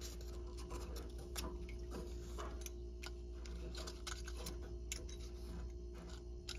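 Light, irregular clicks and scrapes of a brass pressure relief valve being threaded by hand into a galvanized pipe elbow, over a steady low hum.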